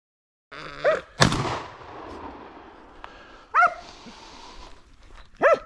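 Hunting dogs barking at a downed wild boar, three single barks spaced a couple of seconds apart. A single loud gunshot, the loudest sound here, rings out just after the first bark, about a second in.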